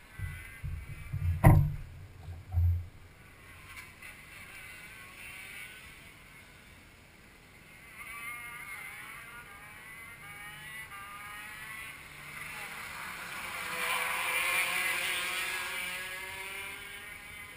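Go-kart engines running out on the track, their pitch wavering. One kart comes by loudest a little past the middle, then falls in pitch as it goes away. A few knocks from handling the kart come near the start, the loudest about a second and a half in.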